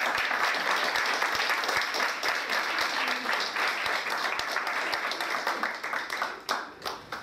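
Audience applauding, a dense steady clapping that thins out to a few scattered claps near the end.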